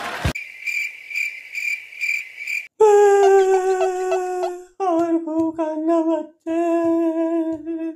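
A high chirping tone pulsing about twice a second for the first two and a half seconds. Then a man's loud, drawn-out fake crying wail in long held notes, broken off three times.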